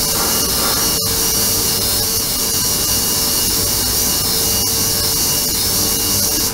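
Ultrasonic cleaning tank running: a loud, steady high hiss from the cavitating water, with a steady hum beneath. It cuts off suddenly near the end.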